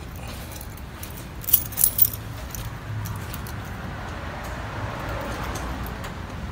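Keys jangling in a quick cluster of three bright clinks about a second and a half in, over a steady low rumble.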